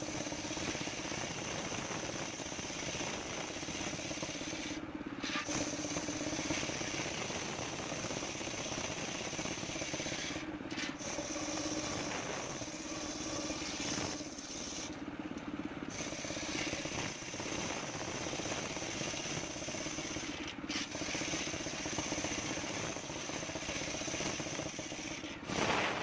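Homemade table circular saw ripping coconut-palm wood into boards: the machine runs steadily while the spinning blade cuts lengthwise through the log.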